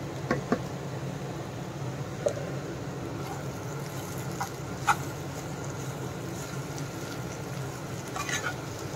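Spatula stirring vegetables in a nonstick frying pan, with a few light clicks against the pan over a steady low hum.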